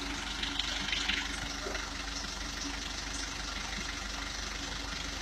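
Recovery truck's engine idling steadily, a low even hum.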